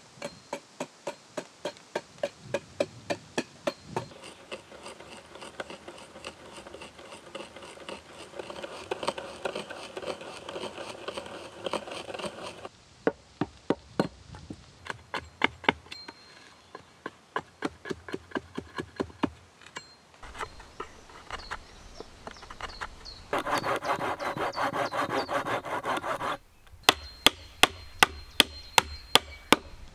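Hatchet knocking on a wooden post to drive its tenon into a hole in a plank, in quick runs of taps about three or four a second. Stretches of rasping, scraping wood come in between, and a run of sharp, louder blows comes near the end.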